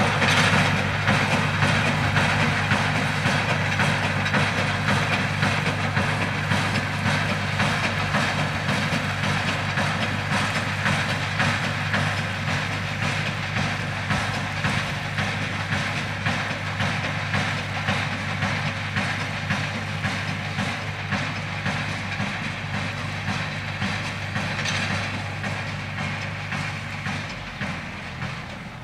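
Square baler working: a steady engine hum under a fast, even mechanical clatter from the baler, slowly growing quieter. The low engine hum drops away shortly before the end.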